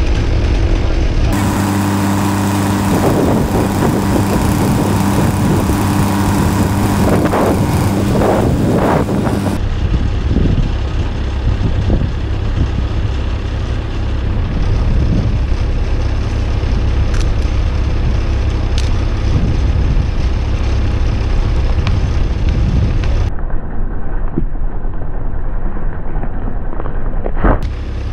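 Gas chainsaw running and cutting through the base of a dead poplar trunk to fell it. A single thud near the end as the trunk hits the ground.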